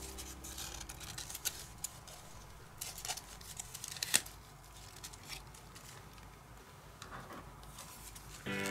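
Stiff cardstock pieces of a slotted papercraft egg rustling and clicking as they are handled and fitted together, with a few sharp ticks, the sharpest about four seconds in. Music starts again near the end.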